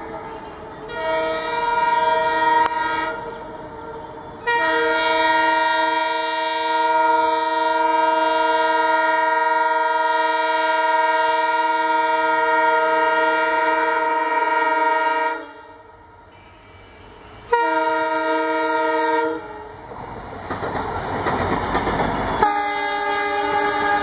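Horn of a WDG-4 (EMD GT46MAC) diesel locomotive sounding repeatedly. There is a short blast about a second in, then one long blast of around eleven seconds, then another short blast. After that comes the rushing rumble of the locomotives passing close on the track, and the horn sounds again near the end.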